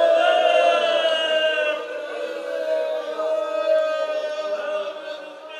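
Several voices wailing in grief: long held, slowly falling cries of lamentation that fade toward the end.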